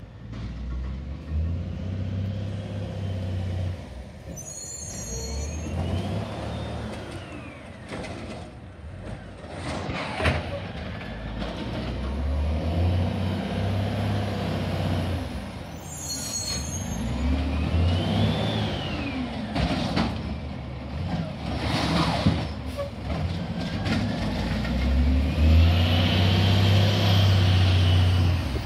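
Garbage truck's diesel engine revving up and falling back three times, each time with a whine that rises and falls, along with short air-brake hisses and a few sharp knocks. It grows loudest near the end as the truck comes close.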